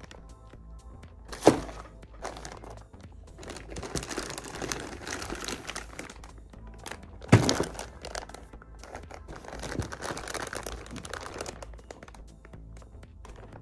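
Clear plastic parts bags crinkling as they are handled and pulled from a cardboard kit box, with two sharp thuds, one about a second and a half in and another about halfway, the loudest sounds. Background music plays throughout.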